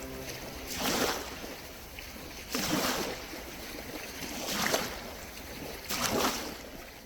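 Sea waves washing in, four rushing swells that rise and fall about every two seconds. A held music chord dies away just at the start.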